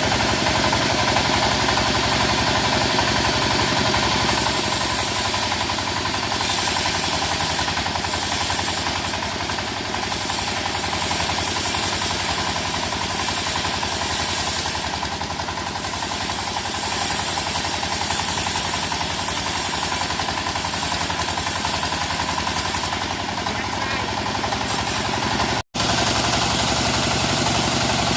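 Engine of a mobile wood-cutting circular saw rig running steadily with a fast, even firing rhythm. The sound drops out for an instant near the end.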